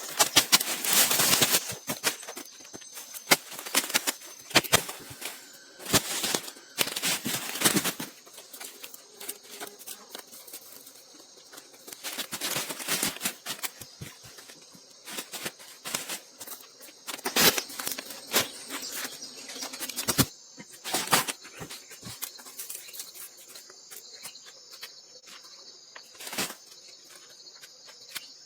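Irregular sharp knocks and clicks, in quick clusters early on and spaced out later, over a faint steady high insect drone.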